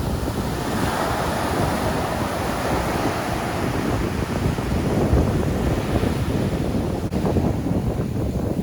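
Strong sea waves breaking and washing up the shore, with wind buffeting the microphone in low rumbling gusts.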